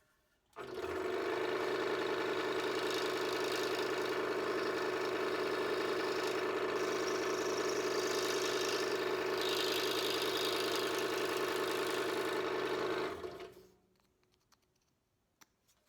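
An electric workshop power tool is switched on, runs at a steady speed for about twelve seconds, then is switched off and winds down.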